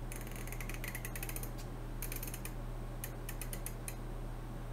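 Combination dial lock being turned by hand, its dial giving off rapid runs of fine mechanical clicks in three spells: about a second and a half long, then half a second, then nearly a second.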